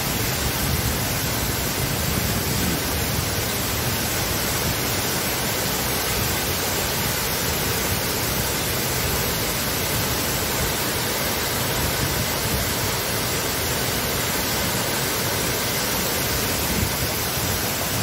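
Benang Kelambu waterfall, many streams of water cascading over mossy rock into a shallow pool: a steady, unbroken rush of falling water.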